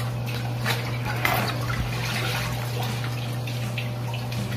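A cloth wiping and sloshing through shallow water in the bottom of a glass aquarium sump compartment, with irregular small splashes and trickles, soaking up the last water to dry the compartment. A steady low hum runs underneath.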